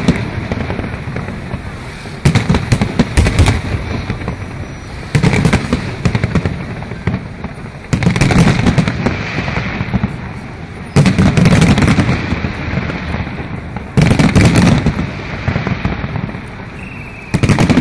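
Fireworks display: aerial shells bursting with a loud boom about every three seconds, six in all, each followed by a dense crackle that fades before the next.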